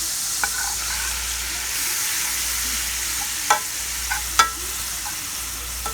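Pre-chopped onions and bell peppers, put in frozen, sizzling steadily as they saute in hot oil in a pan. A few sharp knocks of a utensil against the pan as they are stirred, the loudest about three and a half and four and a half seconds in.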